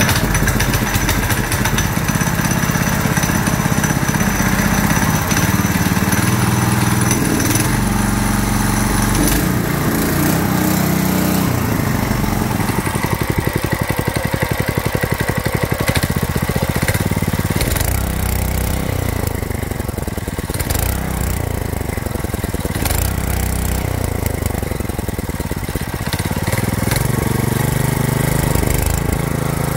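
Kawashima 7 hp, 208 cc single-cylinder gasoline stationary engine running, driving a CVT torque converter belt drive. Through the second half it is revved up and let back down several times, its pitch rising and falling.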